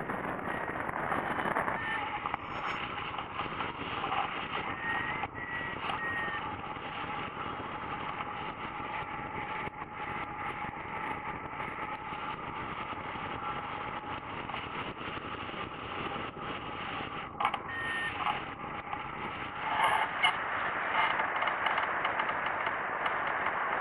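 Wind rushing over a camera on a hang glider in flight, with a few short high beeps from the variometer on the control bar. The rush swells briefly a few seconds before the end.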